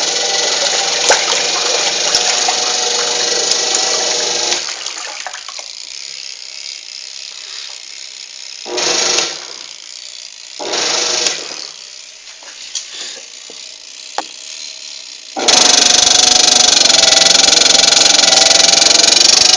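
Mueller tanquinho agitator washing machine running with a strange noise whose cause the owner does not know; the machine still washes with full force. A loud, steady mechanical noise with a whine, which drops away about four seconds in, comes back in two short spells, and runs loud again near the end.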